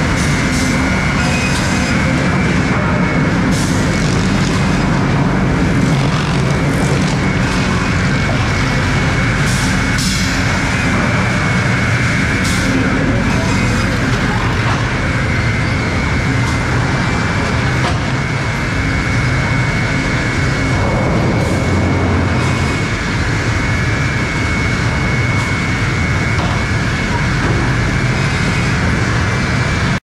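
Sawmill lumber-line machinery running: a loud, steady din of motors and conveyors with a constant high whine, broken by occasional sharp knocks of boards.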